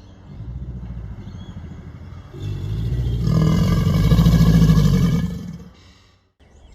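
A crocodilian's low, growling bellow. It builds over the first couple of seconds, is loudest in the middle and fades out about six seconds in, just before another call starts.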